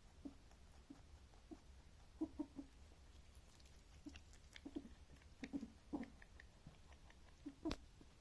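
Pet rabbit eating, making faint, irregular chewing sounds and short, soft noises that come in small clusters, with one sharper click near the end.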